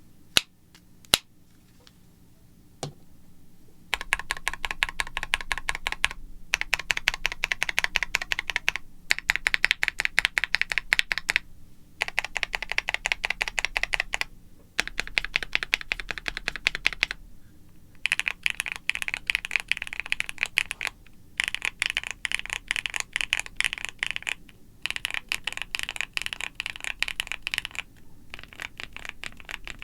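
Rapid, dense clicking in runs of two to three seconds with short pauses between them, preceded by a few single sharp clicks in the first three seconds.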